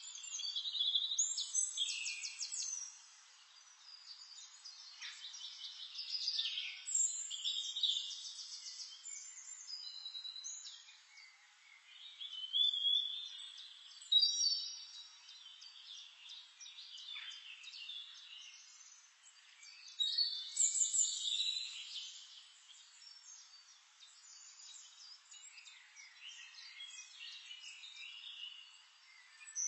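Songbirds singing and calling, with rapid trills and high whistled notes in bursts every few seconds.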